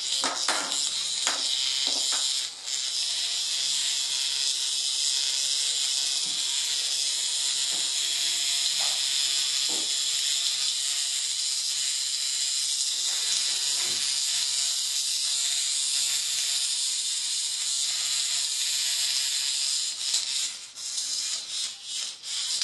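Hexbug vibrating toy buzzing and rattling steadily on a tiled floor, a high, hissy whirr, with a few sharp knocks early on; near the end the buzz breaks up and cuts in and out.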